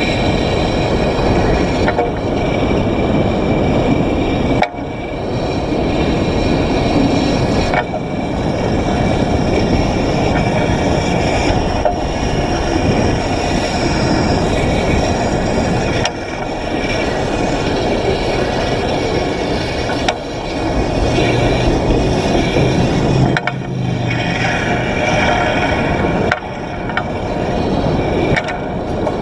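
PCC streetcar running along the street, heard from the top of its trolley pole: a loud, steady rush of rolling and wind noise, broken every few seconds by a brief sharp dip, with a low steady hum joining in for a few seconds near the end.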